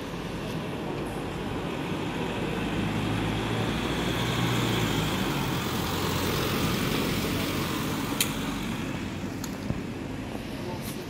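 Mercedes-Benz Sprinter ambulance driving past, its engine and tyre noise swelling as it comes close and fading as it moves away, with no siren. A couple of sharp clicks late on.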